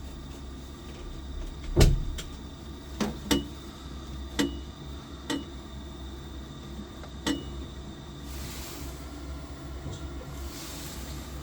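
Biasi boiler's controls being worked: about six sharp clicks, the loudest a knock about two seconds in, several followed by a short high beep, over a steady low hum. Two short hisses come near the end.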